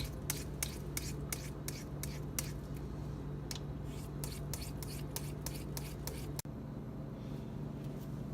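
A VG10 steel pocket-knife blade, set at its angle by a guide clip, stroked quickly back and forth on a wet 8000-grit Japanese whetstone. Short scrapes come about four a second, growing fainter and sparser after about three seconds.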